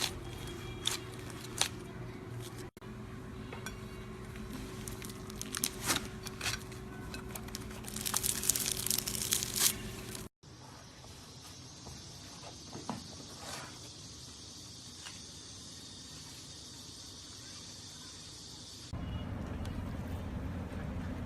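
Slime being squished and worked by hand: irregular crackles and small sticky pops. About ten seconds in, the sound cuts to a quieter steady hiss with a few soft clicks, and near the end a steady low rumble comes in.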